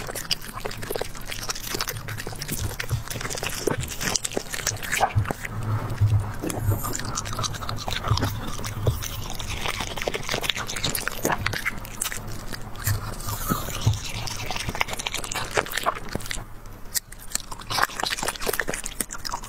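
Small dog chewing and crunching vegetables taken from chopsticks, with irregular crisp crunches and bites throughout.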